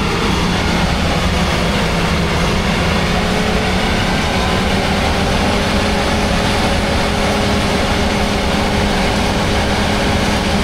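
Combine harvester running steadily: a loud, constant engine and machinery drone with a steady hum.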